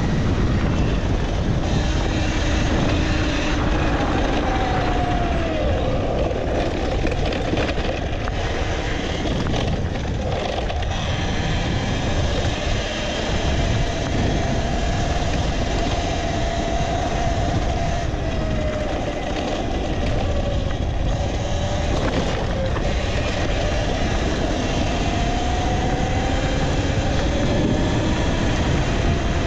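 Talaria Sting R electric dirt bike being ridden: a steady rush of wind and road noise, with the electric motor's whine rising and falling in pitch as the bike speeds up and slows.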